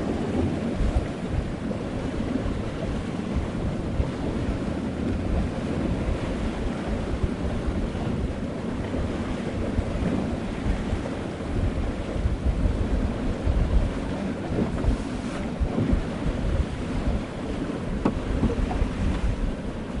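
Sea water washing around a sailing boat, with wind buffeting the microphone: a steady deep rush that swells and eases irregularly.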